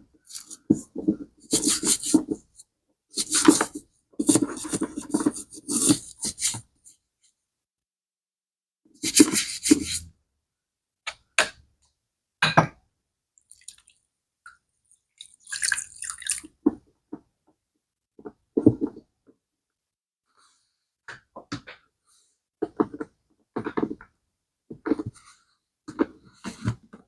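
Hand-washing a bag: wet scrubbing and splashing in bursts of a second or two, then a run of short knocks and clicks from handling.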